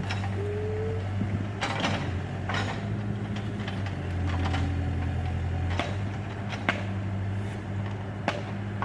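Backhoe engine running steadily, with scattered metallic knocks and clanks and a few brief rising whines.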